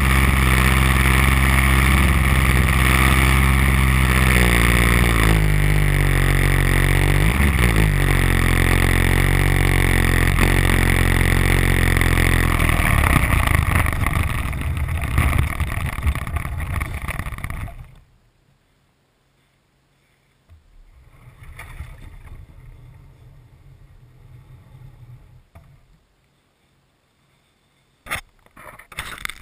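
DLE 30cc single-cylinder two-stroke gas engine of an RC Beaver, heard from on board, running loud on a landing approach. Its pitch slides down as it is throttled back a few seconds in, then it fades and stops abruptly about 18 seconds in as the plane settles on the ice. After a short silence there is a faint rushing noise, and a few sharp knocks come near the end.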